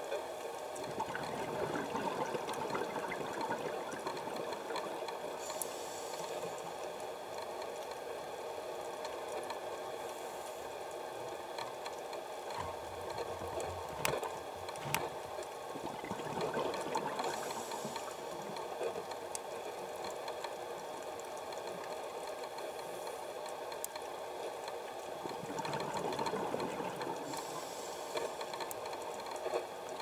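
A steady mechanical hum with a rough wash of noise over it that swells and fades, and two sharp clicks about halfway through.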